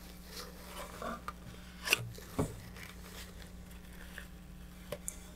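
Paper towel rubbing and wiping inside a fiberglass rocket tube, with soft handling noises and a few short sharp clicks, the loudest about two seconds in.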